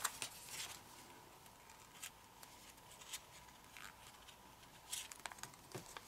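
Faint, scattered rustles and soft crackles of a sheet of kami origami paper being creased and folded by hand.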